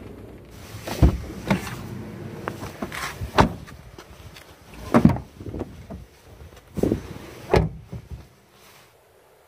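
Several loud knocks and thumps from a Nissan Dayz car door being handled, opened and shut. They sit over a low steady hum that cuts off near the end.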